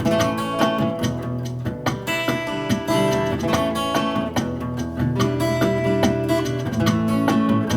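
Background music: acoustic guitar playing, plucked and strummed with sustained notes.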